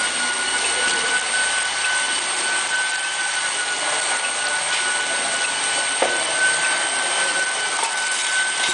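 Induction melting furnace running: a steady high whine with a second, fainter and higher tone above it, over an even hiss, and a few faint clicks.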